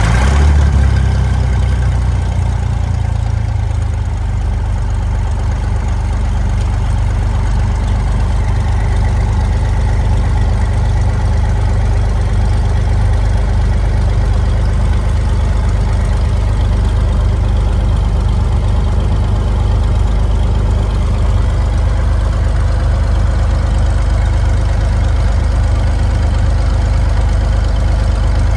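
Cessna T182T's turbocharged Lycoming TIO-540 six-cylinder engine idling just after a cold start, heard from inside the cabin. It settles within the first second or so into a steady, even low drone with the propeller turning.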